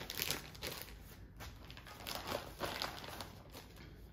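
Small clear plastic jewelry bag crinkling in irregular bursts as it is handled and opened by hand.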